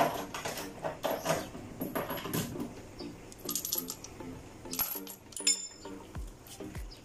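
Steel lug nuts and a socket wrench clinking and rattling as they are handled at a car's wheel, with a brighter ringing clink about five and a half seconds in.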